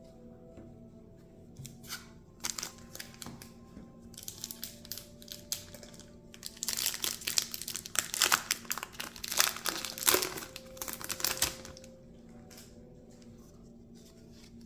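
Lord of the Rings TCG booster pack's foil wrapper being torn open and crinkled by hand. Light rustling comes first, then loud, dense crackling in the middle, which then stops.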